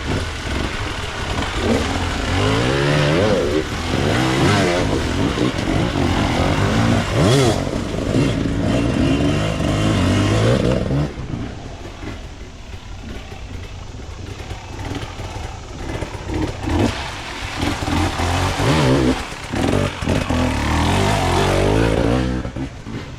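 Enduro dirt bike engines revving in rising and falling bursts for about ten seconds, easing off for several seconds, then revving hard again near the end.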